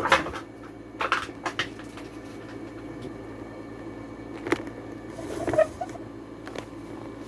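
Scattered knocks and rustles of a camera being handled and turned around, over a steady low room hum.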